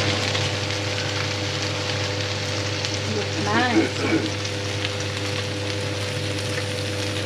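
Chicken satay sizzling and steaming in a closed electric contact grill basted with coconut milk: a steady hiss with a low hum underneath. A short vocal sound is heard about three and a half seconds in.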